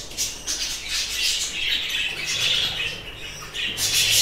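A flock of budgerigars chattering continuously, with many overlapping high chirps. The chatter dips briefly about three seconds in, then picks up louder again near the end.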